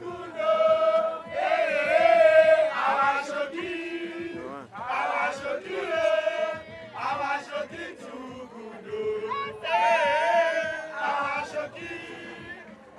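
Men's voices chanting loudly together in short repeated phrases, with held, wavering notes between brief pauses.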